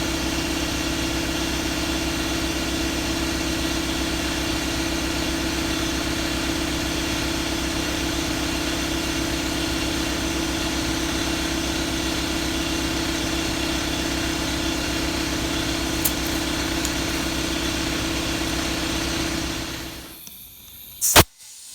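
Engine idling steadily, then cutting out near the end, followed by a single sharp bang as the tire bead pops onto the rim.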